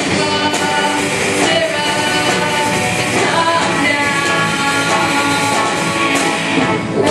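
Live rock band playing loudly, with singing over drums and instruments.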